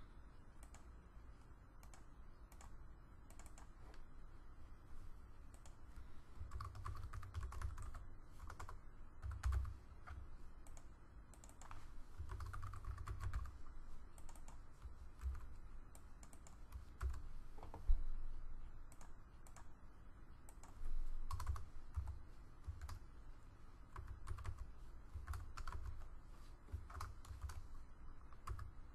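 Typing on a computer keyboard: irregular keystrokes in short bursts with pauses between them.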